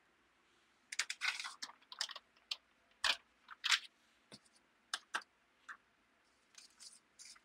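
Parchment paper crinkling and scraping under a clothes iron pushed back and forth across it: a string of irregular dry clicks and rustles starting about a second in.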